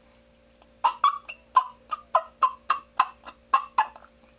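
Turkey diaphragm mouth call blown in a run of about a dozen short calls, roughly four a second, starting about a second in. By the caller's own account he still needs more practice with it.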